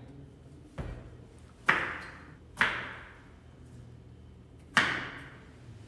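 Kitchen knife chopping a red bell pepper on a cutting board: a soft knock a little before a second in, then three sharp chops, each trailing off briefly.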